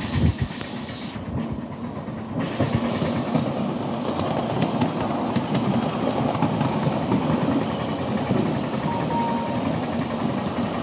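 Miniature ride-on live-steam train running along its track, heard from a riding car: a steady rumble and rattle of the wheels on the rails, with irregular clacks.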